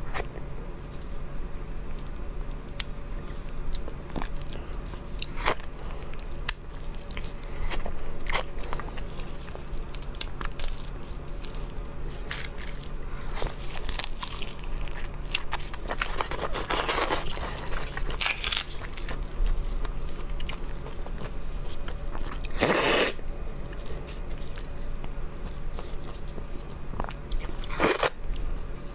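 Close-miked eating of large whole red prawns: shells cracking and crunching, chewing, and a few longer sucking sounds as the heads are put to the mouth.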